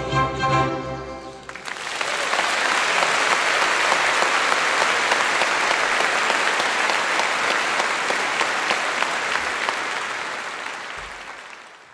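A choir and small band hold the song's final chord, which cuts off about a second and a half in; the audience then breaks into applause, which fades out near the end.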